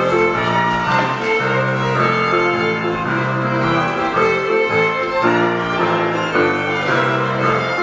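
Scottish country dance music in jig time: a fiddle carrying the melody over piano accompaniment, playing continuously at an even loudness.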